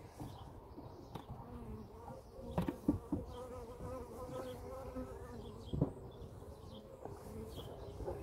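Honeybees buzzing around an opened hive, a steady hum. A few wooden knocks of the hive boxes as the super is lifted off the brood box: three close together about two and a half seconds in and one near six seconds.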